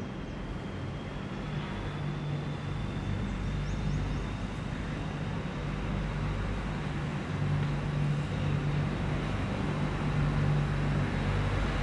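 Steady city ambience heard from a rooftop: a low engine hum from distant traffic that swells and fades, with a faint steady high whine above it.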